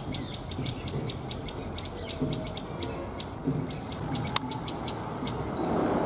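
Common tailorbird calling: a loud series of short, sharp, high notes repeated about six a second, broken by brief pauses. A single sharp click comes a little past four seconds in.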